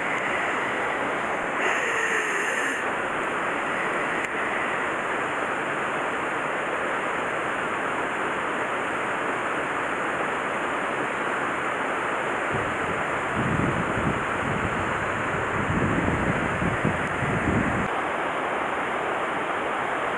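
Steady rush of water flowing in a concrete-walled channel. Low wind buffeting on the microphone comes and goes in the second half.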